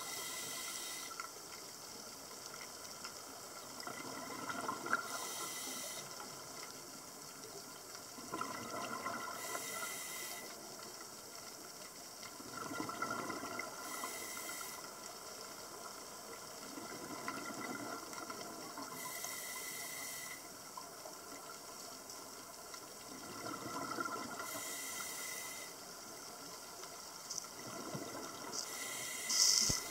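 Scuba diver breathing through a regulator underwater: a hiss of inhaled air and a burst of exhaled bubbles, about one breath every five seconds, over a steady underwater hiss.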